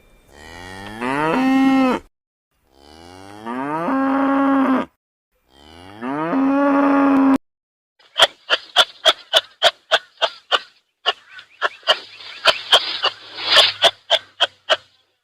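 A cow mooing three times, each long call rising in pitch and then holding steady. After that comes a rapid series of short, sharp sounds, about three a second, from another source.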